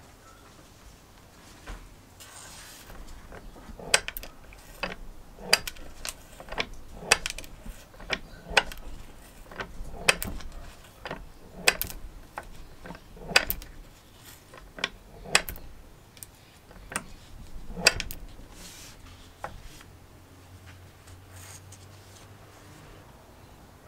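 Restored benchtop lever metal shear being worked: a run of about twenty sharp clicks and snaps, roughly one every half second to a second, as its blade closes on small cuts. The clicks stop about three quarters of the way through.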